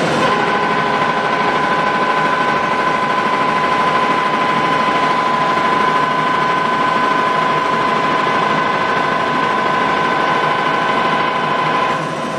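Giddings & Lewis Bickford Chipmaster radial drill running under power: a steady mechanical hum with a high gear whine. Near the end the sound dips and the whine drops to a lower pitch.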